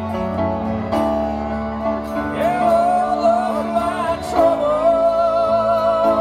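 Live performance of a slow ballad: acoustic guitar and keyboard chords, changing about a second in and again past the middle, under a violin playing the melody in long, held notes with vibrato.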